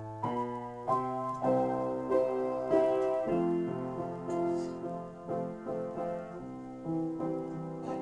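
Upright piano played in an improvisation: chords and melody notes struck about once or twice a second and left to ring.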